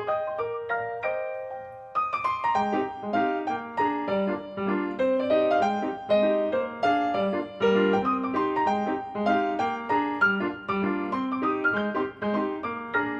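Background piano music: a gentle melody over a bass line, with a brief thinner passage in the first two seconds before the fuller accompaniment comes in.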